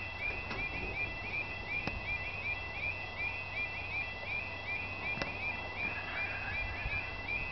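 Level crossing audible alarm (yodel-type) warbling steadily in a quick repeating two-tone pattern while the barriers are down: the warning that a train is approaching.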